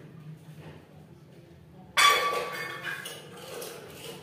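Kitchenware clattering: one loud clang about two seconds in that rings briefly and fades, followed by a few softer clinks.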